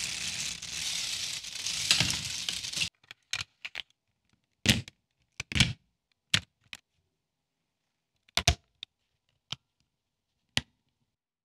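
Lego Technic beams, pins and a motor being snapped and clicked together by hand: about a dozen short, sharp clicks spread out with silence between them, some in quick pairs. It is preceded by a few seconds of rustling noise that cuts off suddenly about three seconds in.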